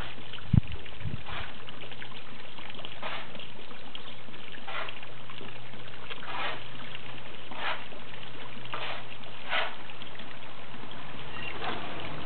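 Steady trickle of running water in a garden pond, with a short splash every second or two as koi and carp break the surface. A single low thump about half a second in.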